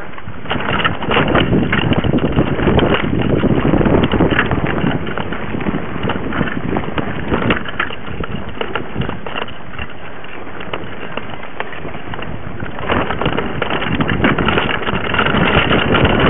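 Mountain bike rolling fast over a dirt singletrack, picked up by a camera mounted on the bike: tyre and trail noise with constant rattling and clattering from the bike, and wind on the microphone. It gets rougher and louder for the first few seconds and again near the end.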